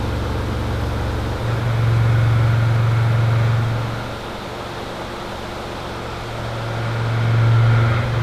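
Haas TM-1P CNC mill machining 304L stainless steel under flood coolant: a steady low machine hum that swells louder twice and eases off in between, over the hiss and splash of coolant.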